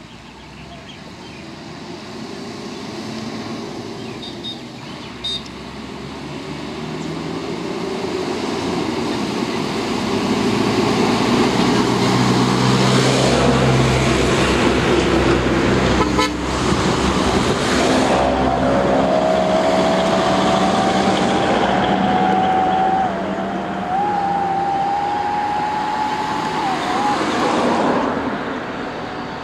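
Road traffic passing close by: a bus, cars, vans and a motorbike, with engine and tyre noise building over the first ten seconds and staying loud. About two-thirds of the way in, a vehicle horn is held for several seconds, rising slightly in pitch and stepping up once partway.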